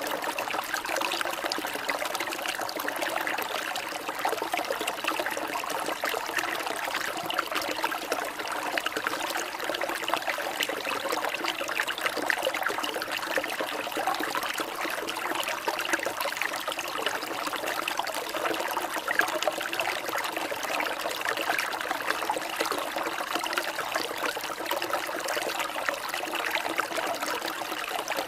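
Water trickling and babbling steadily, like a small stream.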